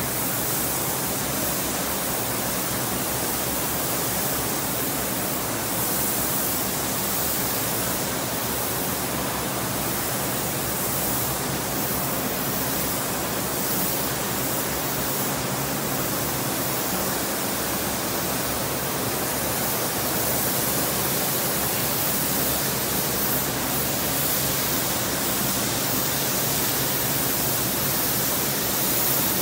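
A steady, even rushing hiss spread over all pitches, with no change in level or character.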